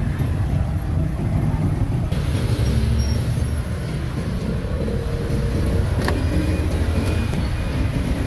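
Steady low rumble of passing motor traffic, with one sharp knock about six seconds in.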